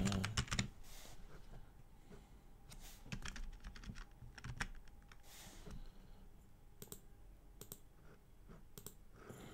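Typing on a computer keyboard: scattered, irregular key clicks in short groups with pauses between.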